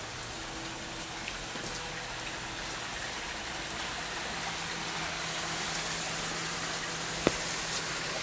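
Steady rain falling on pavement and roofs, an even hiss with scattered drop ticks. A single sharp knock about seven seconds in, and a faint steady low hum underneath.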